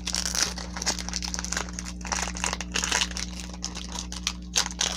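Foil wrapper of a Pokémon trading-card booster pack crinkling in irregular bursts as fingers pull and tear it open.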